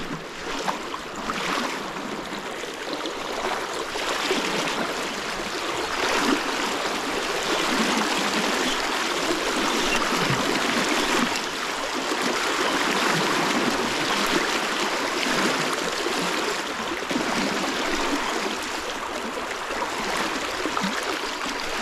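Fast-flowing river water rushing steadily over a shallow, rippled run.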